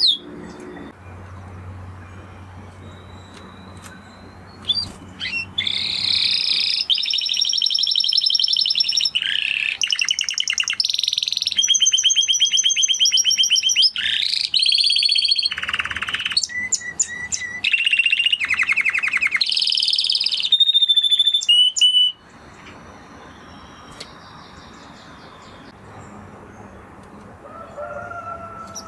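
Spanish Timbrado canary singing in rapid rolling trills and fast repeated notes, starting about five seconds in and cutting off abruptly about three-quarters of the way through. Before and after the song there are quieter stretches with a low hum and a few faint notes.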